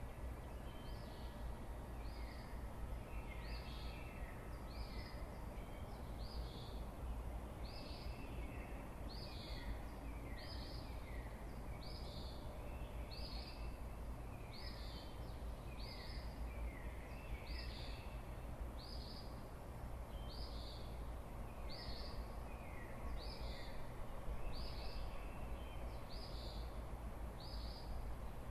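A bird repeating short, falling notes, a little under one a second, in the pre-dawn morning chorus. A steady low rumble of light breeze runs beneath it.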